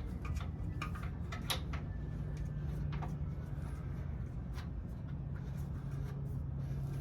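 Irregular light clicks and taps of metal hardware being handled, as a washer and nut are fitted onto a leaf-spring bolt, over a steady low hum.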